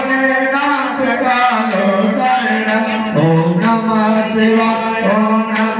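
A man's voice chanting through a microphone in a sing-song style, holding long notes that step from pitch to pitch, with a few sharp clicks.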